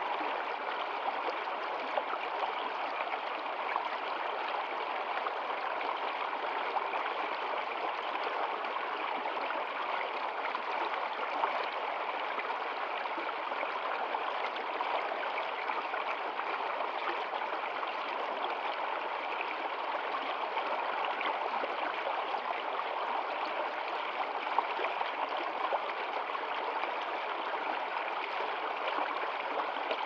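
Small shallow stream flowing over rocks: a steady, even rush of running water.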